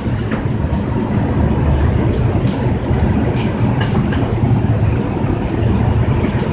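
Arc welding in a shop: a steady low hum of the welding machine and shop running throughout, with irregular sharp crackles and pops from the arc.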